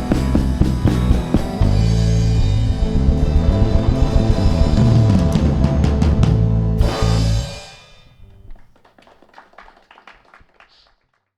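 Live blues-rock band with guitar and drum kit playing the last bars of a song, stopping about seven and a half seconds in. The sound dies away to faint scattered ticks.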